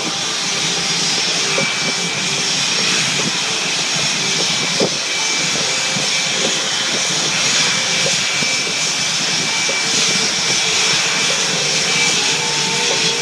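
Fighter jets' engines running on the ground: a steady, even jet rush with a thin high whine.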